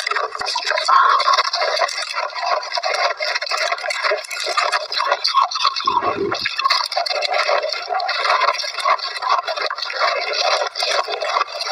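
Shaved ice crunching as it is bitten and chewed: a dense, continuous run of crisp crackles, with a brief low thump about six seconds in.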